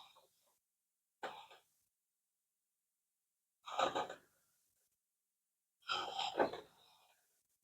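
A man coughing and breathing hard in three short bursts, with silence between them.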